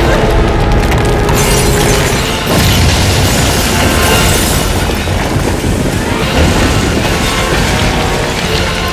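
Cartoon sound effect of a building collapsing in an earthquake: a continuous rumbling crash of falling debris, mixed with background music.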